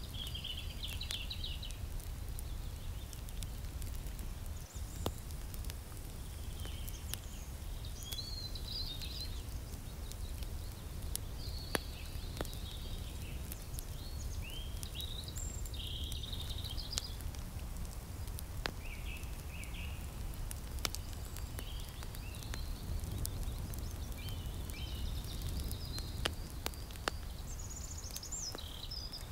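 Small campfire crackling with scattered sharp pops, over songbirds singing short varied phrases throughout and a steady low rumble.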